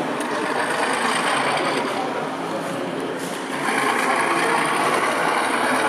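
HO-scale model diesel locomotives running on the layout: a steady small-mechanism whir and rattle over the murmur of a busy hall. It grows louder a little past halfway.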